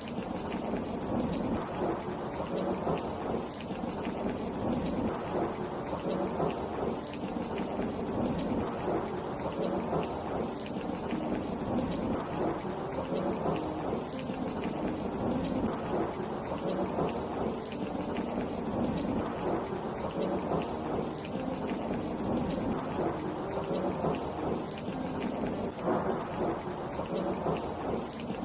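Heavy rain falling steadily, a dense, even patter of drops with a full, low body to it.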